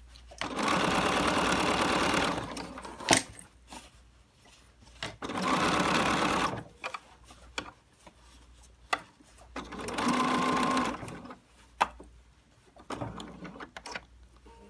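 BERNINA 770 sewing machine stitching binding through thick, heavily seamed layers in three short runs, stopping between them. A few sharp clicks fall in the pauses as the work is turned.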